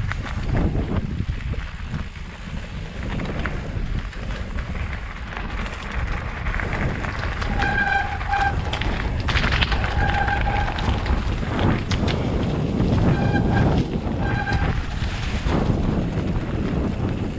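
Mountain bike on plus-size 27.5+ tyres rolling fast downhill over a rough dirt trail, with wind rushing over a helmet-mounted GoPro and steady rumble and knocks from the bike over bumps. About halfway through, a short high-pitched tone sounds four times.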